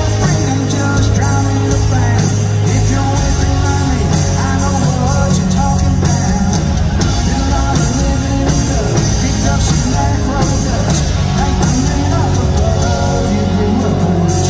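Live country-rock band playing loud through a venue PA, with electric guitar and a drum kit, heard from the audience.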